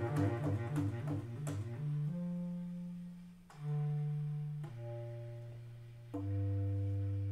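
Bass clarinet in its low register, playing a quick figure alternating between two low notes, then a series of long held notes, each lower than the one before, the last one sustained.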